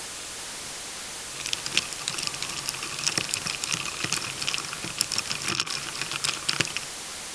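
Tableware clinking and clattering: a quick run of small light clicks and taps, with faint ringing, starting about a second and a half in and stopping a little before the end.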